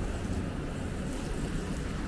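Steady low rumbling noise of city street traffic mixed with wind buffeting the microphone.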